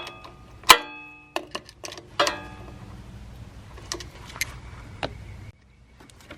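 Metal hand tools clinking: two sharp metallic knocks that ring on briefly, about a second and two seconds in, followed by a few lighter clicks.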